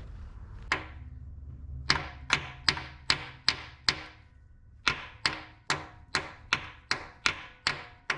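Hammer blows on a socket and extension bar, driving a new freeze plug into its bore in the engine block. There is a single blow, then a run of six at about two and a half a second, a short pause, and a run of nine at the same pace, each a sharp metallic tap with a brief ring.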